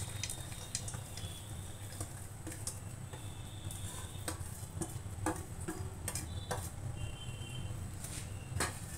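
Wheat flour roasting in ghee in an aluminium kadhai, faintly sizzling over a steady low hum. Scattered light clicks and taps sound as crushed dry fruits are tipped in from a steel bowl.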